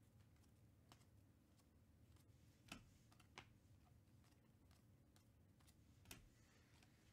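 Near silence with a few faint clicks and snaps as glossy trading cards are flipped through by hand, the clearest three coming about a third of the way in, soon after, and near the end.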